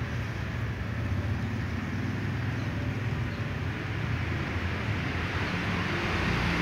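Steady low background rumble, with no cat calls in it.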